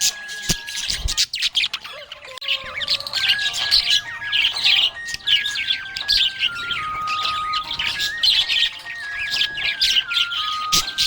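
Budgerigars chirping and chattering in a quick, continuous stream of high chirps, with a simple melody of held notes stepping up and down beneath them.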